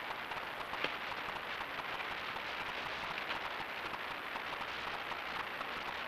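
Steady patter of light rain on fallen leaves, a dense run of small ticks over a hiss, with one sharper tick about a second in.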